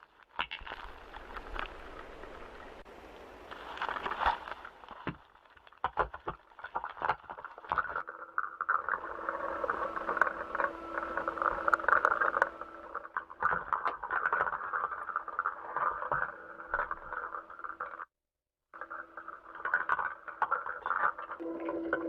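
Background audio of NASA astronaut footage: a crackling hiss with many clicks and knocks over a steady hum. It cuts out completely for a moment about eighteen seconds in.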